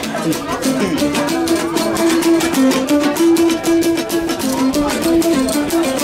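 Guitar played live: a repeating picked melody over a steady, quick rhythm.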